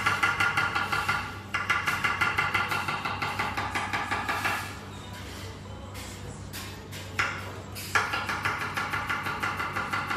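Rapid knife chopping on a wooden cutting board, about six strokes a second, slicing cucumber. The chopping stops about four and a half seconds in, two single knocks follow, and fast chopping of an onion resumes about eight seconds in.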